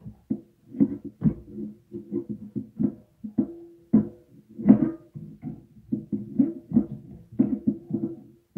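Background music of plucked guitar notes at an even, lively pace.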